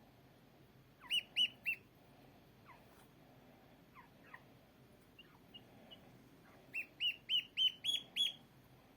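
Short, high, arched chirps from an animal: three quick ones, then a run of six in quick succession near the end, with a few faint falling squeaks between.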